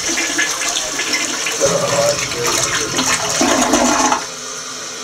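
Toilet flushing: a loud rush of water through the bowl that dies down sharply about four seconds in.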